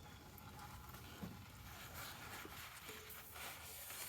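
Faint handling noises: soft rustling with a few light taps.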